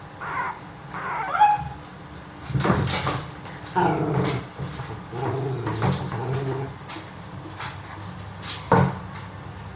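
Miniature dachshund puppies about three weeks old whimpering and squeaking: several short, high, wavering cries, with a sharper one near the end.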